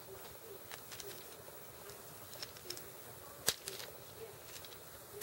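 Plastic parts of a Transformers Voyager Megatron action figure clicking and rattling as it is handled and folded through its transformation, with a sharper click about three and a half seconds in and another at the very end.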